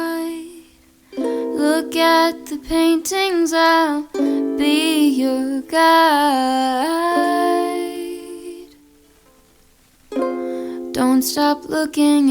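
Background music: a gentle song with a singing voice over plucked-string accompaniment. It drops out briefly about a second in and fades to a lull for a couple of seconds near the end.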